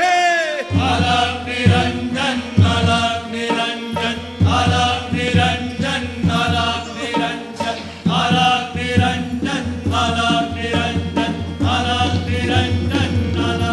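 Stage music: a voice chanting a short, repeating melodic phrase over a drum beat of about one strong beat a second.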